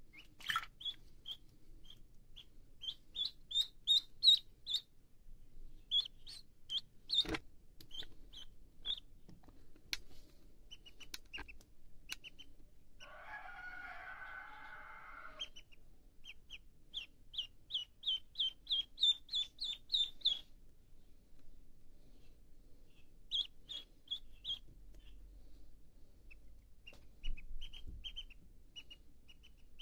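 Domestic duckling peeping: runs of short, high chirps, several a second, broken by brief pauses.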